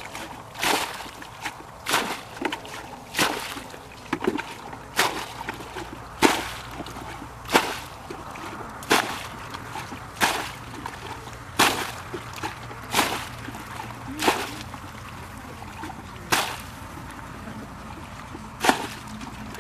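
A plastic bucket bailing water out of a shallow muddy ditch: a sharp splash each time a bucketful is flung out, about once every second and a half, with sloshing between as the bucket scoops.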